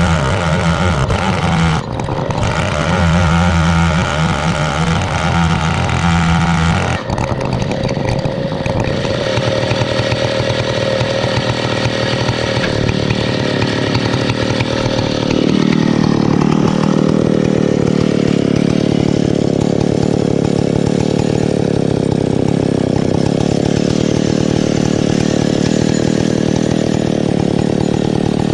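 A 105cc two-stroke Stihl 070 clone chainsaw running hard in an Alaskan chainsaw mill, ripping lengthwise through a pine log. Its note changes about seven seconds in and again around fifteen seconds in.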